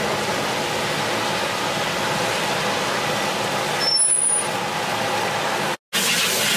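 Steady rushing roar, typical of a high-pressure gas burner firing under a large aluminium biryani pot, with a brief high squeak about four seconds in. The sound cuts out for an instant near the end.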